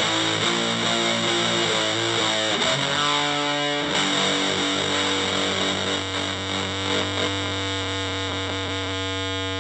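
Electric guitar through an Electro-Harmonix Big Muff fuzz pedal and an Orange Crush 35RT amplifier, playing a slow distorted riff: a few changing notes, then one note rung out and held for about five seconds, slowly fading as it sustains.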